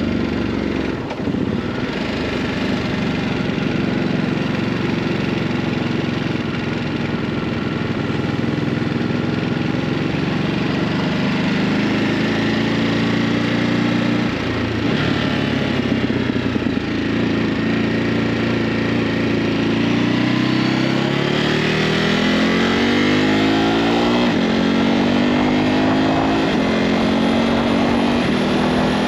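Ducati Hypermotard 950's stock-exhaust V-twin engine running while the bike is ridden, its pitch dropping at gear changes around a second in and near the middle, then climbing steadily as it accelerates in the second half.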